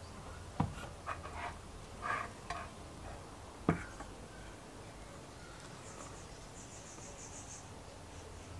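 The metal lid of a vintage Berda Snackwicher sandwich toaster is lowered onto the bread and shuts with one sharp clack about a third of the way in. Before it come a lighter click and some soft handling sounds; later a faint, high, pulsing chirp is heard.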